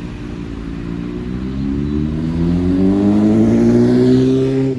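A motor vehicle's engine accelerating, its pitch rising steadily and the sound growing louder over several seconds.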